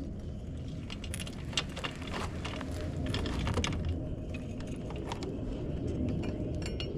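Metal drive chain of a Kawasaki Ninja 300 clinking and rattling in quick irregular clicks as it is handled and fed over the sprocket, over a steady low rumble.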